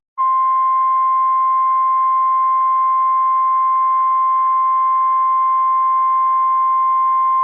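NOAA Weather Radio 1050 Hz warning alarm tone: a single loud, steady high-pitched tone, the alert that signals a warning message is about to be broadcast.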